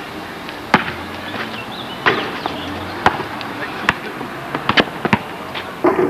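A rubber ball bouncing on asphalt as it is dribbled, sharp thuds about a second apart with a quicker run of bounces about five seconds in.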